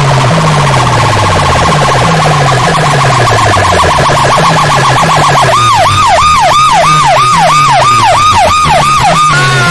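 Very loud DJ remix music from a stacked tower of horn loudspeakers, led by a siren-style electronic effect. First comes a fast warbling tone. About halfway through it changes to a quick run of falling siren sweeps, about three a second, over a repeating stepped bass line.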